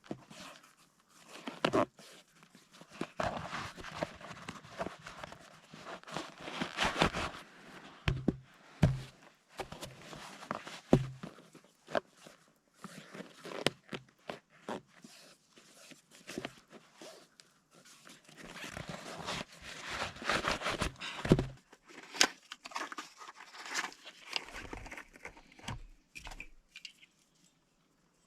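Irregular rustling, crinkling and knocks of gear being handled, with some crunching.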